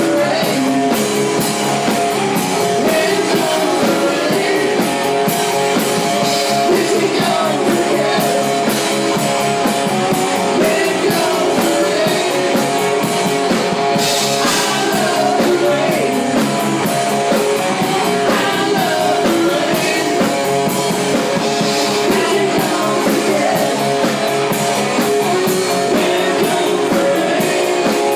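Live rock band playing a song: a Telecaster-style electric guitar, a bass guitar and a drum kit, with a man singing lead.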